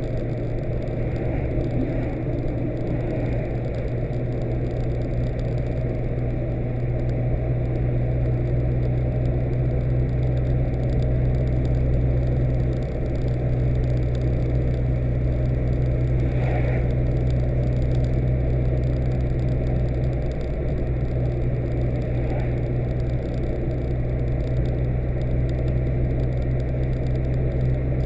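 Car cabin noise while driving: a steady low engine and road hum that holds constant throughout.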